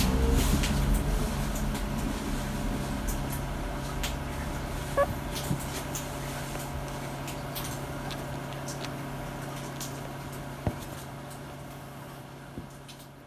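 A steady low room hum with faint scattered clicks and rustles from Akita puppies shifting against each other on their bedding, the whole sound fading out gradually toward the end. There is one short rising squeak about five seconds in, and a couple of soft knocks later on.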